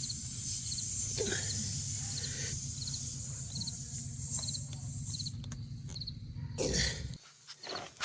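Steady low hum and high hiss, with a short cricket-like chirp repeating every half second or so; the hum cuts off suddenly about seven seconds in.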